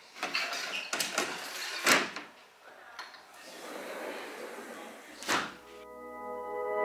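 About four sharp knocks or thuds spread over several seconds, the loudest two about two and five seconds in. Acoustic guitar music fades in near the end.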